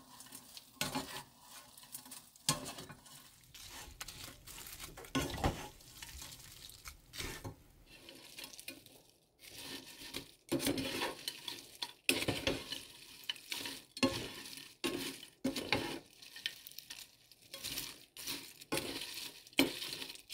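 Crisp fried dried peppers (gochu-bugak) rattling and scraping against a nonstick frying pan as they are tossed with a wooden spatula, in irregular dry clatters. The rattle is the sign that the coated peppers have fried crisp.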